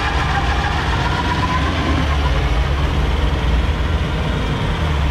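Mitsubishi L200's 2.5 DI-D diesel engine running hard under load, with its tyres spinning in loose forest dirt. A faint whine fades out in the first second or two.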